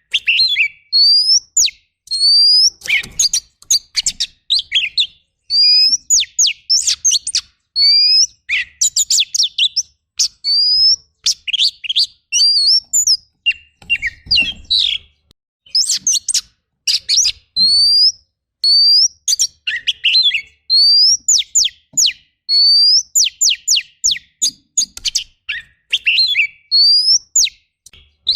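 Oriental magpie-robin singing hard and continuously: short loud phrases of clear rising whistles and fast chattering trills, each one to two seconds long with brief pauses between them. The song is packed with phrases mimicked from other birds ('full isian').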